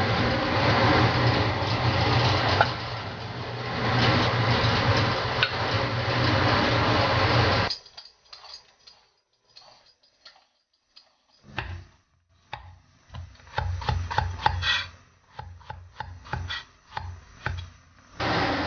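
A steady rushing noise that cuts off suddenly after about eight seconds. Then a knife scrapes the skin off a luffa gourd in short, uneven strokes, with light clicks and knocks.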